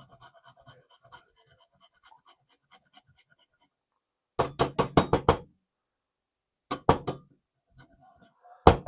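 Fresh ginger being grated on a small grater: faint quick scraping strokes at first, then bursts of rapid, loud knocking strokes, about seven a second, about four seconds in, briefly near seven seconds, and again at the end.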